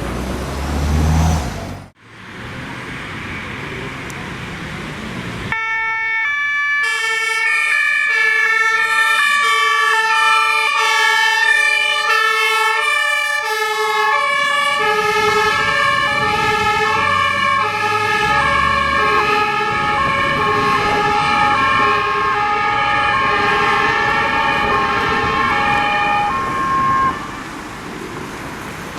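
German fire engine's two-tone siren (Martinshorn) sounding on an emergency run, alternating between two steady pitches, starting about five seconds in over road noise. Around halfway through, the tones grow denser and a heavy vehicle's engine and tyres rumble beneath them. The siren cuts off a couple of seconds before the end.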